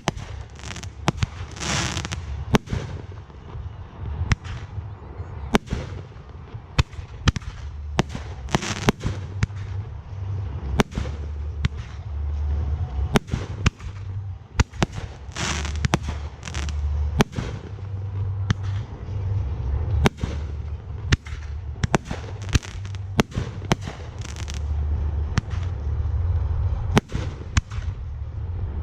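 Fireworks display: a rapid, uneven stream of sharp bangs from bursting shells, several a second, with a few longer noisy bursts among them and a steady low rumble underneath.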